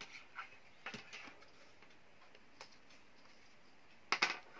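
Handling noise from a compact multimeter in a flexible rubber holster being turned over in gloved hands: soft rubbing and a few light clicks, with a louder cluster of clicks about four seconds in.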